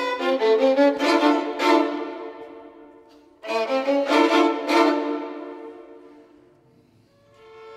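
A group of violins playing two short phrases of quick, accented strokes, each dying away, the second after a brief pause. A held chord then swells in near the end.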